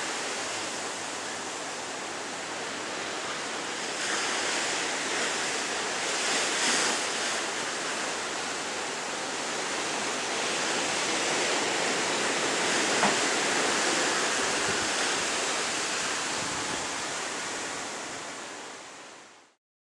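Ocean surf: a steady rush of waves that swells and eases, then fades out near the end.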